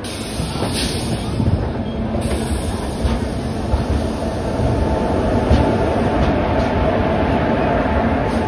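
Passenger train running, heard from an open coach door: a steady rumble and clatter of wheels on rails. A thin squeal of wheel on rail comes in about halfway through and holds nearly to the end.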